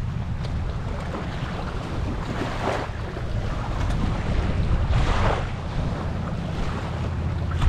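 Wind buffeting the microphone with a steady low rumble, over small waves washing onto a sandy shore; two louder washes swell up about three and five seconds in.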